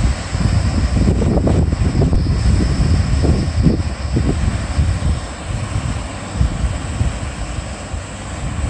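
Wind buffeting the microphone in uneven gusts, over a steady rush of water pouring down a concrete dam spillway.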